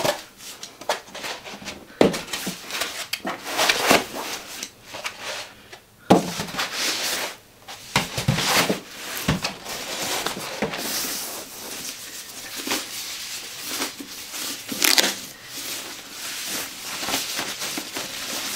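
Unpacking noises: foam packing blocks knocking and rubbing as they are lifted off, then irregular rustling and crinkling as the plastic wrapping is handled and pulled off an amplifier.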